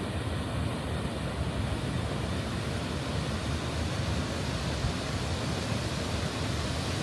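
The River Tees pouring over the High Force waterfall: a steady, unbroken rushing roar of falling water.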